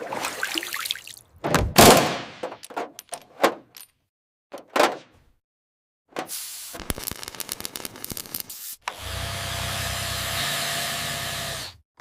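A string of sharp thuds and knocks, a short silence, a run of clicks, then a steady mechanical hum with a faint whine for about three seconds that cuts off abruptly near the end.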